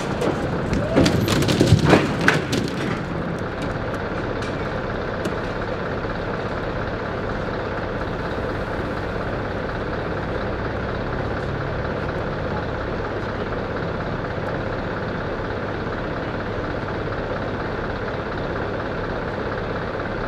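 Heavy truck engine idling steadily. In the first two or three seconds there are loud knocks and rattles over it.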